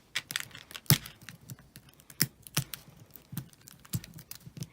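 Fingers and fingernails picking at the plastic packaging of an L.O.L. Surprise toy ball, making a string of sharp, irregular clicks as the wrapping resists opening.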